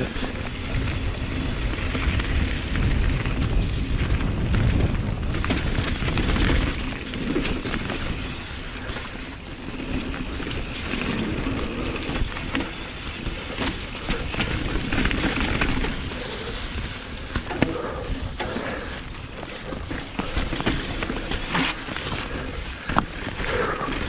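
Mountain bike descending a wet, muddy trail, heard from a rider-mounted camera: tyres over rough ground with the chain and frame rattling and knocking over bumps, and wind rumbling on the microphone, heaviest in the first several seconds. A few sharper knocks stand out near the end.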